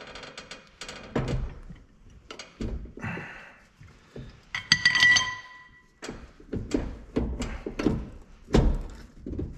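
Steel trailer suspension parts knocking and clicking as a MORryde equalizer is worked into line with the leaf spring eye while it is jacked up, with a short metallic ring about five seconds in.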